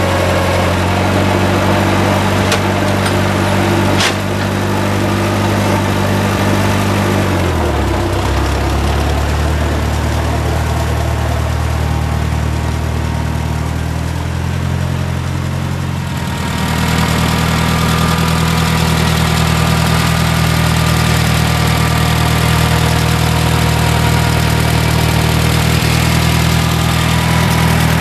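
1951 Case V series tractor's four-cylinder engine running steadily. Its speed drops about a quarter of the way in, and about halfway through the sound grows louder and fuller.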